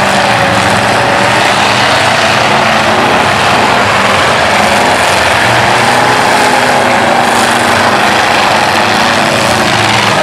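Several demolition derby cars' engines running and revving together, a loud, steady din with engine pitches rising and falling.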